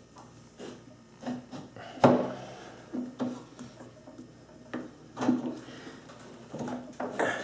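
South Bend drill press spindle being worked into the quill by hand to mesh its splines, steel parts knocking and clunking at irregular intervals, the loudest knock about two seconds in.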